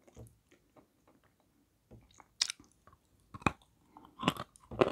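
Bites crunching into a dry block of white Malomikhailovsky edible chalk, with chewing between them: faint small crackles at first, then a few sharp, crisp crunches in the second half. It bites easily.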